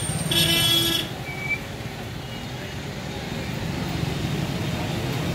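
Slow road traffic of cars and motorcycles moving close by, engines running steadily, with a vehicle horn sounding once for under a second just after the start and a short high beep about a second later.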